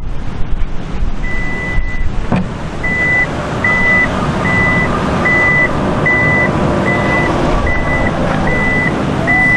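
Vehicle reversing alarm beeping: one longer tone about a second in, then short beeps of the same high pitch a little more than once a second, over a continuous low rumble.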